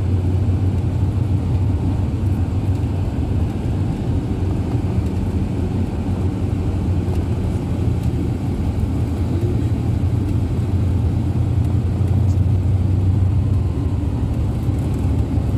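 Steady low drone of a long-distance coach's engine and tyres on the road, heard from inside the cabin.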